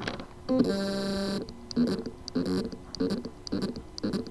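2.5-inch hard drive with loose spindle-motor contacts on its circuit board, trying to spin up: a steady buzzing hum for under a second, then short buzzing pulses repeating a little under twice a second. The sign of a motor that can spin but cannot reach its full speed.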